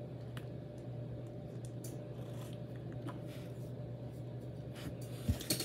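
Person chewing a mouthful of concha (soft Mexican sweet bread with a crumbly sugar topping): faint soft mouth and crumb sounds over a steady low hum. A single thump comes near the end.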